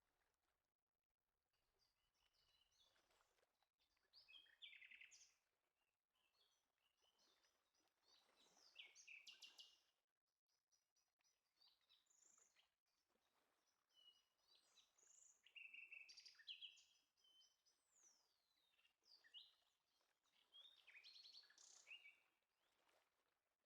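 Faint birdsong: short chirps, trills and sliding whistles coming in clusters every few seconds, with quieter gaps between.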